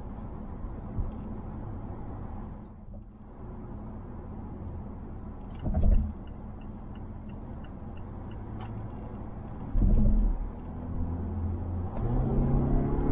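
In-cabin driving noise of a 2020 Mazda Atenza's 2.5-litre four-cylinder: a steady low road and engine rumble, with a dull thump about six seconds in and another about ten seconds in. Between the thumps there is a short run of quick light ticks. Near the end the engine note rises as the car accelerates.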